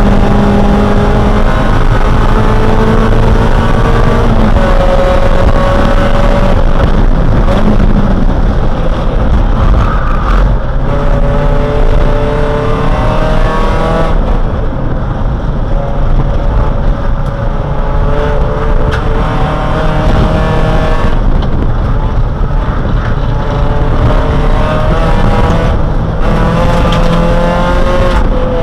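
Dodge Neon race car's four-cylinder engine at racing speed, heard from inside the cabin. The engine note climbs under acceleration and drops back again several times, over heavy road and wind rumble.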